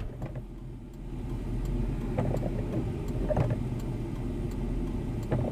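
Vehicle engine running at a steady idle, with a few faint knocks.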